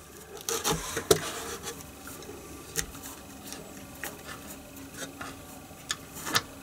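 Soft rubbing with scattered light clicks and taps of hands handling tools and parts, the sharpest tap about a second in.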